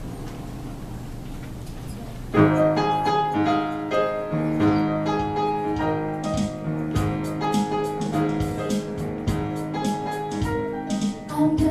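Piano accompaniment: soft held chords, then about two seconds in a sudden louder passage of rhythmic chords. Just at the end, choir voices begin to come in.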